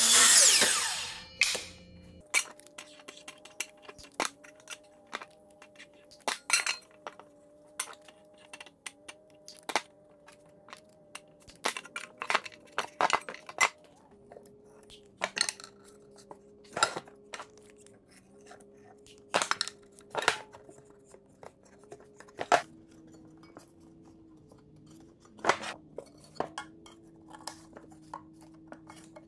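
A sliding miter saw finishes a cut through a wooden strip and winds down in the first two seconds. After that come many sharp, separate knocks and clinks as wooden strips are fitted into an aluminum box. Faint steady tones sit in the background.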